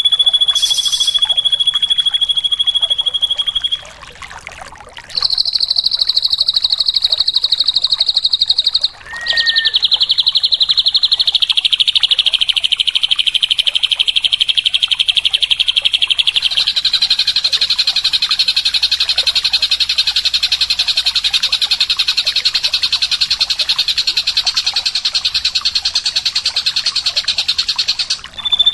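Drongo (srigunting) song: long, rapid trills held at one high pitch, broken by a pause about four seconds in and a brief one about nine seconds in, where a short lower chirp sounds.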